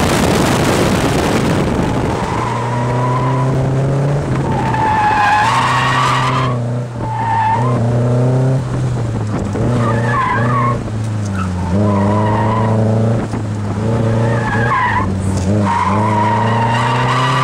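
Nissan 240SX engine revving up and down as the car is driven hard through an autocross course, heard from inside the cabin. The tyres squeal again and again through the corners.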